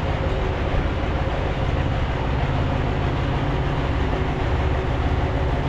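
A heavy vehicle's engine running steadily close by: an even low rumble with a steady drone over it.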